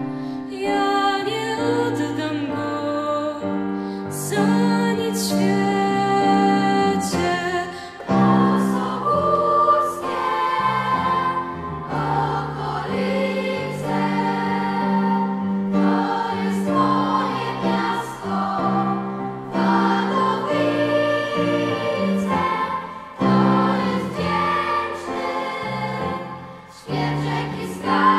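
Children's choir singing a Polish song together with piano accompaniment.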